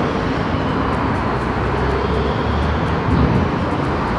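Steady rush of city street noise from passing traffic, with a low rumble that comes and goes.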